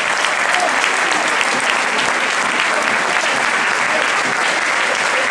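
A large crowd of football supporters applauding steadily, a dense unbroken clatter of clapping.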